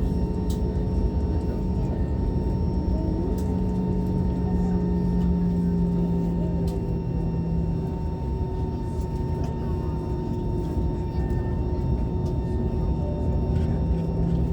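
Steady airliner cabin hum, with a few held droning tones over the air noise, as the plane sits after landing with engines or APU still running. Faint light clicks now and then.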